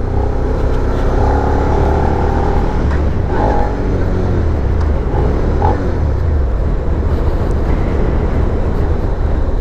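Suzuki SV650's 645cc V-twin engine running on the move, a steady, heavy low rumble.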